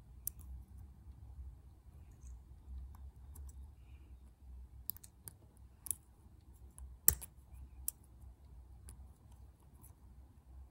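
Small sharp metallic clicks of lock-picking tools working a lock, coming irregularly, with one louder click about seven seconds in.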